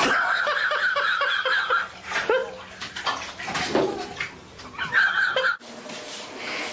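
Bathwater splashing as a cat scrambles at the water's edge in a filled bathtub beside a young child, mixed with the child's high voice in quick repeated squeals. The sound cuts off abruptly near the end and gives way to a quieter room.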